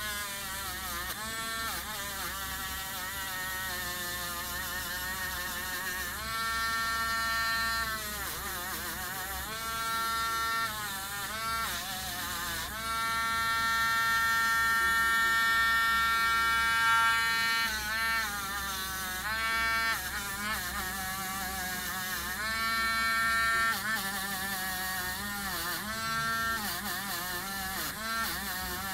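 Small handheld rotary tool spinning a soft brush wheel, buffing corrosion off a metal clutch plate. Its motor pitch dips and recovers many times as the brush bears on the part.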